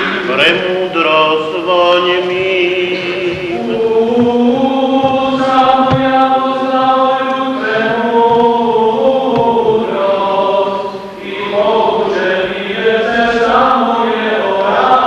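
Voices singing Byzantine-rite (Greek Catholic) liturgical chant in long held notes, several voices together.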